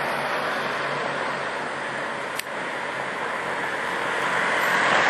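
Street traffic noise mixed with wind, a steady hiss that swells near the end, with one sharp click about halfway through.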